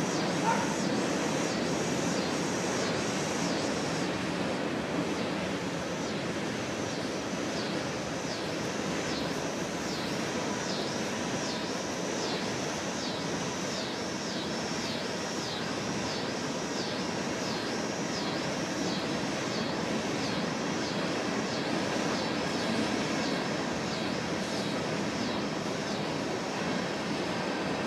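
Union Pacific train passing, a steady, unbroken noise, with a faint high chirp repeating about once a second over it.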